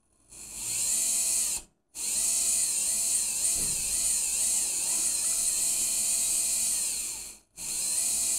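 Small brushless electric motor, driven through an ESC from an RC transmitter's throttle, spinning up in three spells with short stops between: a high whine that rises and falls in pitch as the throttle is worked up and down.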